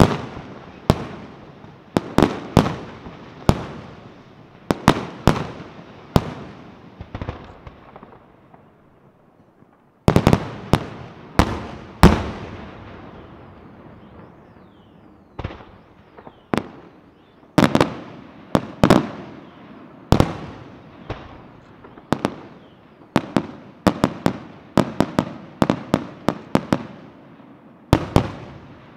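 Fireworks display: shells bursting in rapid, irregular bangs, each followed by an echoing tail. About eight seconds in the bangs thin out to a brief lull, then resume with a loud cluster and carry on in quick, dense volleys.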